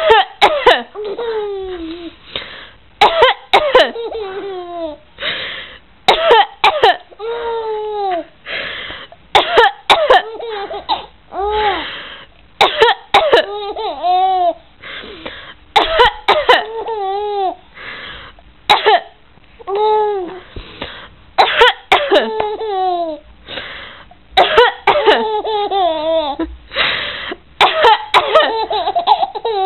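Someone coughs in short bursts again and again, and a baby answers each round with high-pitched giggles and laughs, the two trading back and forth about every one to two seconds.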